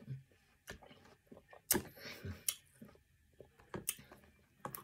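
Close-up chewing of a mouthful of watermelon: soft wet mouth sounds broken by several sharp, separate crunchy clicks.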